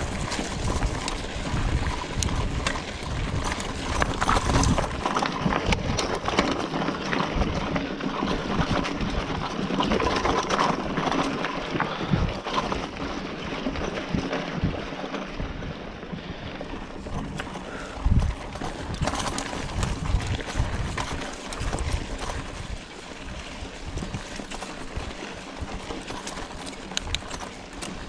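Scott Spark 960 full-suspension mountain bike riding fast down a dirt trail: tyres crunching over loose sand, leaves and stones, with irregular knocks and rattles from the bike over bumps. The noise eases off for the last few seconds as the trail opens onto a smoother dirt track.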